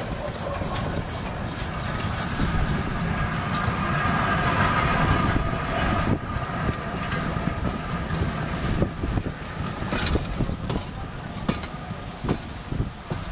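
Railway passenger coaches rolling past on the track, wheels clattering over the rail joints with a steady rumble, then drawing away and leaving road traffic behind.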